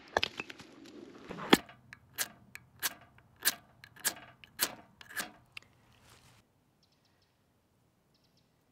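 Hatchet chopping wood on a tree stump: sharp cracking strikes, several close together at first, then a steady run of about seven blows roughly every half second. It goes quiet about six seconds in.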